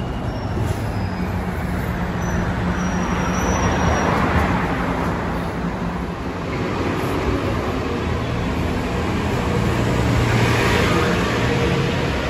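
City transit bus running in traffic with steady road noise. Its engine note swells twice, about a third of the way in and again near the end.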